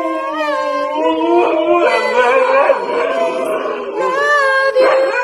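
Siberian husky howling, its voice sliding up and down in pitch along with a person singing a long steady note.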